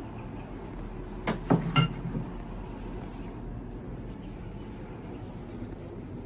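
Three quick sharp knocks about a second and a half in, the last one ringing briefly like a hard metal or glass clink, over a steady low room hum.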